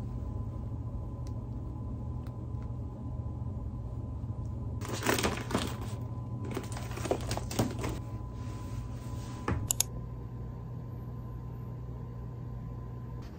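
A shoulder bag being handled: rustling and small clicking noises for a few seconds, then a sharp double click, over a steady low hum.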